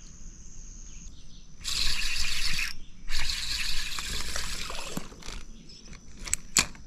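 Fishing reel being cranked, reeling in line in two bursts, the first about a second long and the second about two seconds, followed by a few faint knocks.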